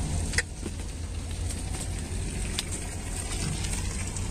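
Komatsu PC200 excavator's diesel engine idling with a steady low rumble. A sharp click about half a second in, and a fainter one later.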